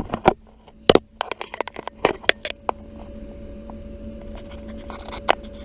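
A quick run of clicks and knocks for about three seconds, then a faint steady hum with only an occasional click, one sharper knock near the end.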